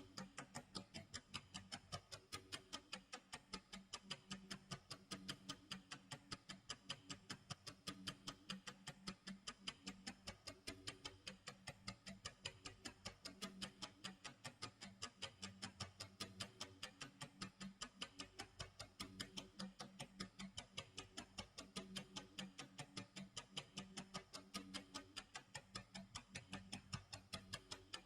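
Clock tick-tock sound effect, ticking faintly at a fast, perfectly even rate.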